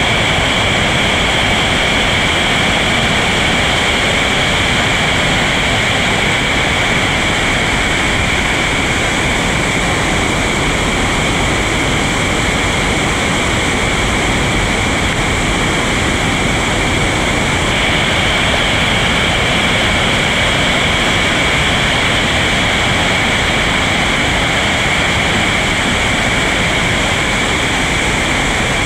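Whitewater rapids on a creek running high: a loud, steady roar of rushing, churning water.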